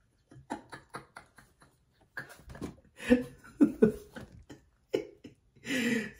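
A person's quiet, broken vocal sounds, murmuring and chuckling under the breath, with a few short clicks about half a second to a second and a half in.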